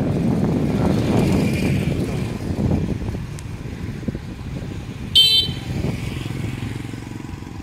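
Low rumble of riding along a street, with a short, high horn beep about five seconds in.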